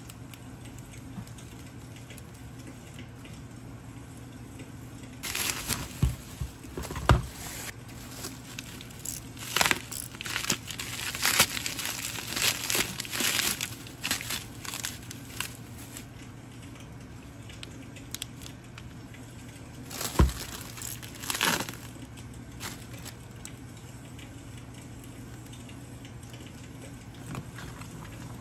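Bubble wrap and clear plastic packaging crinkling in handfuls as items are unwrapped, in bursts for about ten seconds from around five seconds in, with a few soft knocks, then one more knock and crinkle around twenty seconds. A steady low hum sits underneath.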